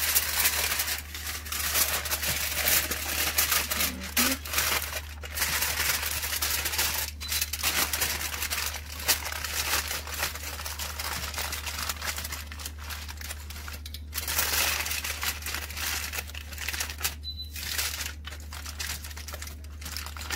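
Aluminium foil crinkling and crumpling in irregular bursts, with short pauses, as hands fold and press it around a rack of ribs.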